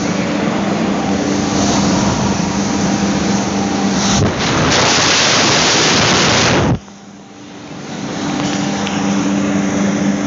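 Electric hand dryer running, a strong rush of air over a steady motor hum. About four seconds in the hum drops out and a louder, hissier blast of air runs for about two seconds. It then cuts off suddenly and the dryer starts up again, building back to full blast over a couple of seconds.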